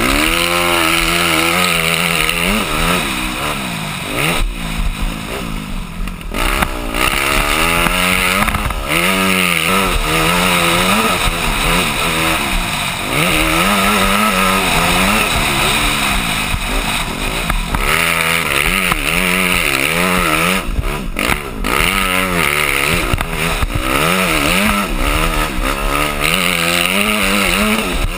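Yamaha motocross dirt bike engine revving hard and easing off over and over as the rider works the throttle and gears, the pitch climbing and dropping repeatedly with a few short throttle-off dips. Heard from a helmet-mounted camera with steady wind rush over the microphone.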